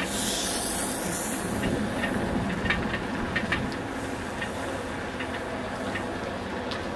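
Riding a bicycle along a wet paved path: a steady rumble of tyres and frame rattle with scattered ticks, and hissing water spray from lawn sprinklers in the first second or so.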